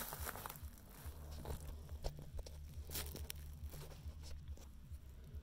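Faint, scattered crinkles and small clicks of plastic bubble wrap being handled, over a low steady hum.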